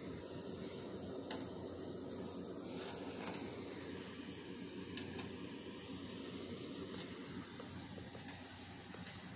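Steady background hiss with a low hum, broken by a few faint clicks.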